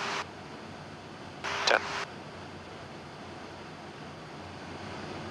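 Steady hiss of aircraft noise in flight, broken by two short bursts of keyed radio static: one right at the start and one about two seconds in.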